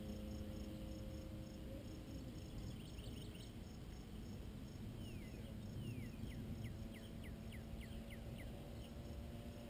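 Faint hum of a small RC P-51D Mustang model's motor flying at a distance, fading and coming back, with a low rumble of wind on the microphone. About five seconds in, a songbird sings a run of falling whistles that come faster and faster, over the steady pulsing of insects.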